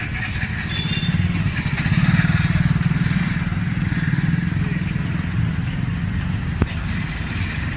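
Motorcycle engine running close by amid street traffic, loudest about two seconds in, with a single sharp click near the end.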